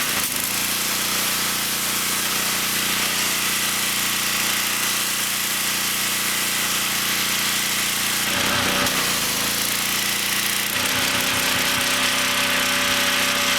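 Ridgid RD80702 pressure washer's Robin EFI engine running steadily, with a strong hiss over it. Its sound changes briefly about eight seconds in and shifts again near eleven seconds.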